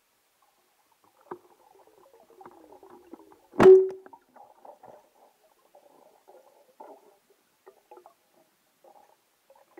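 A speargun shot underwater at a carp: one sharp crack about three and a half seconds in, with a brief ringing tone after it. Faint underwater clicks and rustles come before and after.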